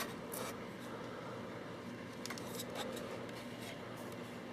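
Plastic Pulse RDR paintball hopper being handled: faint rubbing and light clicks of plastic parts, bunched at the start and again about halfway through.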